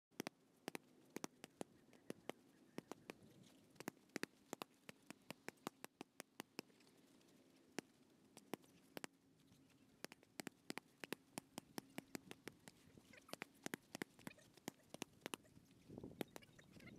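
Punches landing on handheld boxing focus mitts: sharp slapping smacks, irregularly spaced and often in quick combinations of two to four.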